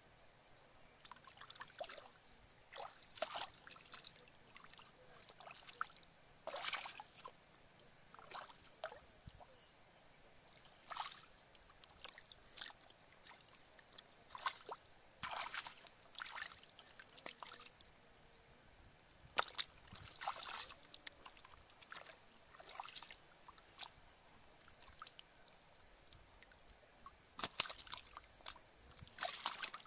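Hands sloshing and splashing in shallow muddy water while groping for fish, in short irregular splashes every few seconds.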